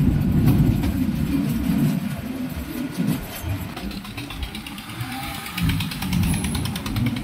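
Ramsagor Express passenger train running, heard from its open door: a loud, uneven low rumble with wind on the microphone, and a spell of rapid faint ticking about halfway through.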